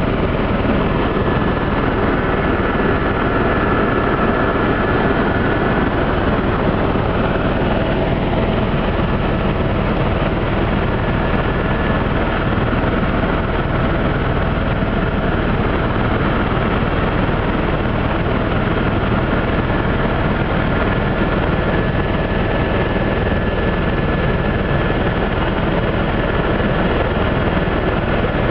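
Helicopter engine and rotor noise heard from inside the cabin: a loud, steady drone with a couple of constant whining tones over it.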